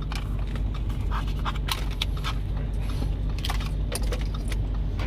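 Plastic connector plugs and cables being handled and pushed together: a string of small clicks, taps and scrapes over a steady low hum.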